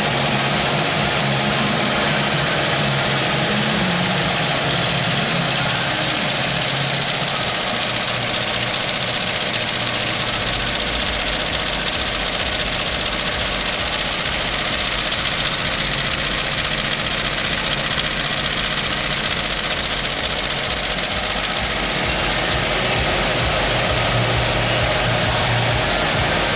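Amay embroidery machine running steadily as it stitches, a dense mechanical clatter and hum. Its low hum changes about ten seconds in.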